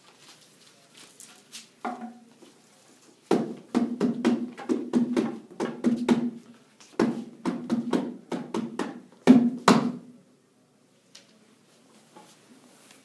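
Small skin-headed hand drum beaten at about three strokes a second, each stroke ringing with a low boom. It plays in two runs with a short break between them and ends on two harder strokes.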